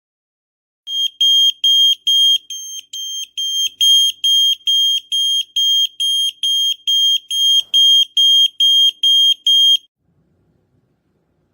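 Smoke alarm sounding: a run of about twenty short, high-pitched beeps at one steady pitch, a little over two a second, which stops suddenly near the end.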